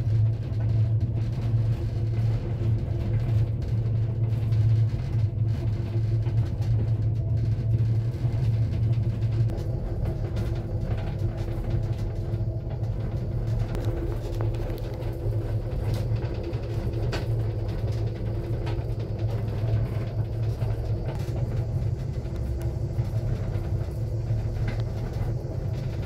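Steady low rumble and hum of an aerial cable car gondola travelling along its cable, heard from inside the enclosed cabin.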